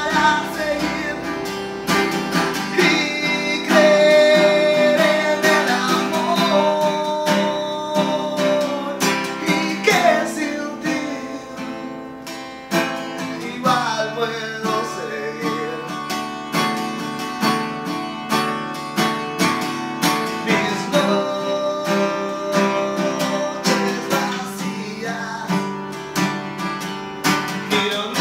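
Acoustic guitar strummed in a steady rhythm, accompanying a man singing in phrases that come and go.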